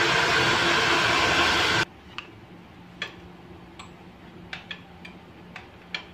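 Handheld hair dryer blowing steadily, then switched off suddenly a little under two seconds in. After that come a few faint, scattered clicks over a low hum.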